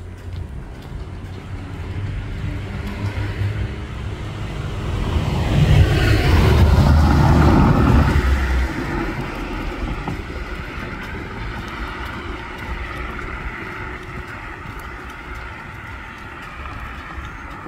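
A car passes close by: the sound builds over a few seconds, is loudest about six to eight seconds in with a deep rumble and a falling pitch, then fades away slowly.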